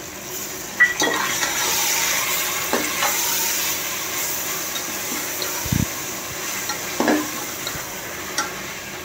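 Tomatoes, chillies and ginger-garlic paste sizzling in hot oil in a pan, the sizzle swelling about a second in, with a spoon stirring and knocking against the pan a few times and one dull thud near the middle.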